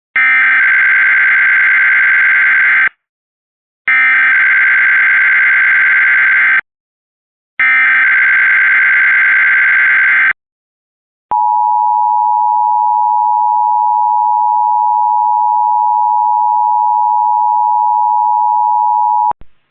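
Emergency Alert System monthly test: three bursts of SAME digital header data, each just under three seconds long and about a second apart, then the steady two-tone EAS attention signal held for about eight seconds and cut off abruptly.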